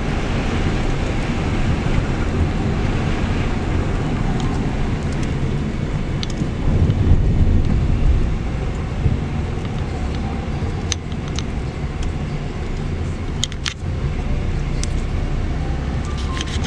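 Road and engine noise heard inside a moving car's cabin: a steady low rumble, with a few light clicks in the second half.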